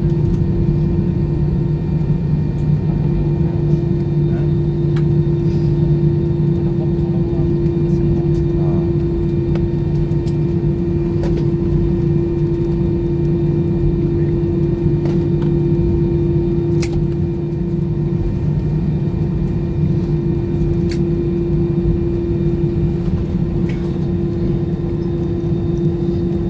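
Cabin noise of an Airbus A320 taxiing after landing: the jet engines at idle give a steady drone with two constant low tones. A few faint clicks sound over it.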